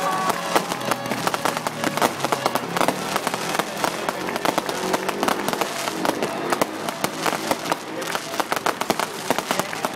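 Fireworks crackling and popping in a dense, irregular run, with voices faintly beneath.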